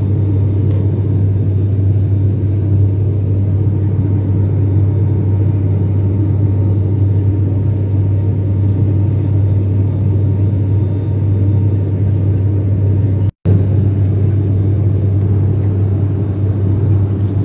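Inside the cabin of a propeller airliner in flight: the engines and propellers make a steady drone with a strong low hum. The sound cuts out for an instant about 13 seconds in.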